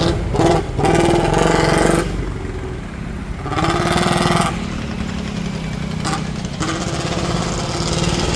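Small vehicle engine running steadily on the move, swelling louder briefly about a second in and again near the middle.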